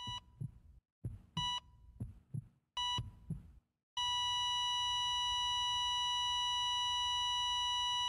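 Heart-monitor sound effect: three short beeps about a second and a half apart with heartbeat thuds between them, then a continuous flatline tone from about halfway through, the signal of cardiac arrest.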